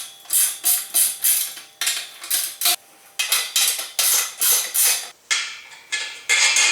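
Ratchet wrench with a 1/2-inch socket tightening bolts: quick metallic ratcheting bursts, about three a second, in short runs with brief pauses between them.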